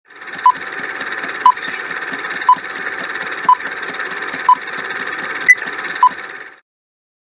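Quiz countdown-timer sound effect: a hissy, fast ticking with a short beep about once a second and a sharper, louder click near the end, cutting off suddenly shortly before the end.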